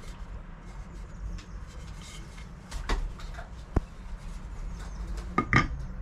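Wooden parts being handled on a wooden tabletop: a few short knocks and clatters, the loudest pair near the end, over a steady low rumble.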